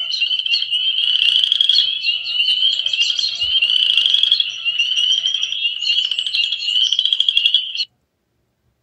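A dense chorus of frogs calling together, many high, rapid trills and peeps overlapping into one continuous sound. It cuts off abruptly near the end.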